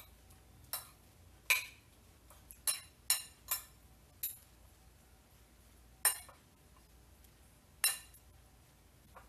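Metal fork and spoon clinking against a ceramic plate as a salad is tossed: about eight sharp, ringing clinks, several close together in the first four seconds, then two more spaced out.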